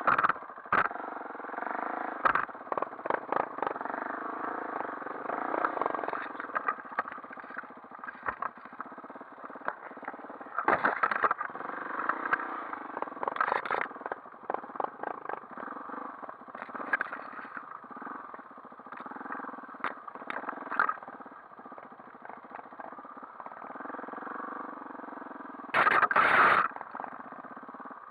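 Dirt bike engine running at low speed over a rough, overgrown trail, revving up and down, with frequent knocks and rattles. A loud, brief rush of noise comes near the end.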